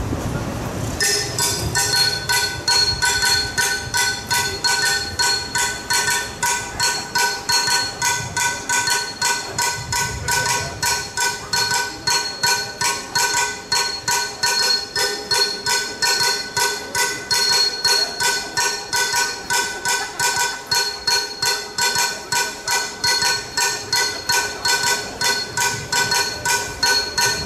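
Rhythmic metallic striking with a few high steady ringing tones, starting about a second in and keeping an even beat of about three strikes a second.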